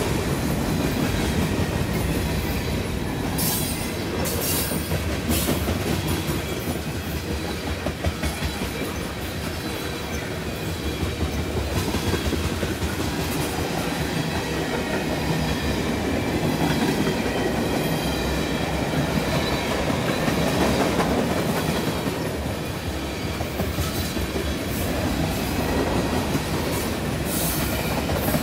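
Freight train of covered hopper cars and tank cars rolling past close by: a steady rumble and clatter of steel wheels on the rails. Brief high-pitched bursts of noise come about three to five seconds in and again near the end.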